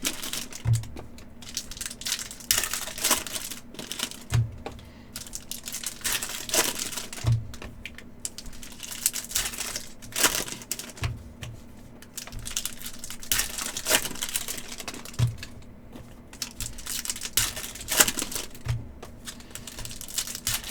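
Hockey trading cards and foil pack wrappers being handled on a table: a rapid, clicky rustling of cards and wrappers, with a soft knock about every three to four seconds.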